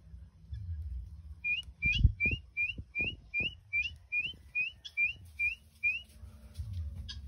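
A rapid run of about a dozen short whistled notes, each slurring upward, at about three a second. Low thumps and a low rumble sit beneath them.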